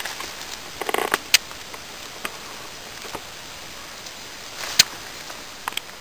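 Scattered clicks, scrapes and rustles of hands working a wooden stick with a Swiss Army knife, over a steady hiss. There is a small cluster of clicks about a second in, and the loudest click comes about five seconds in.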